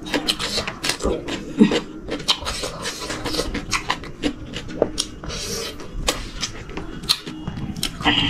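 Close-miked eating sounds: chewing, with fingers squeezing a lime wedge and working through a pile of rice by hand, a steady stream of small irregular clicks, smacks and rustles.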